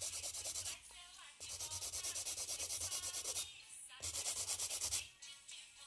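Hand-held board nail file rasping back and forth across the free edge of a polygel nail extension in quick, even strokes, in three runs with short pauses between.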